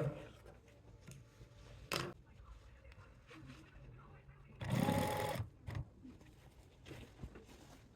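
Sewing machine stitching in short runs, the longest and loudest about five seconds in.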